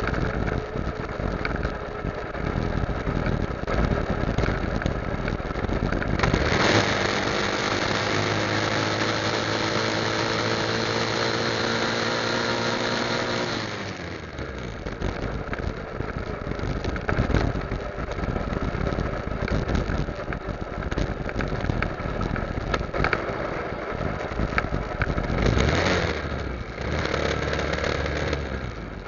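Motorcycle engine running under way, mixed with rough road and wind noise. From about six seconds in, the engine note comes through strongly as a steady drone for around seven seconds, then sinks back into the road noise. It rises briefly again near the end.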